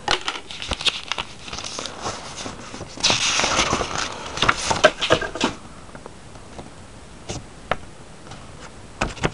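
Paper and cardboard packaging being handled: a dense run of rustling and crinkling for about five seconds, loudest around three seconds in, then a few scattered light clicks and taps.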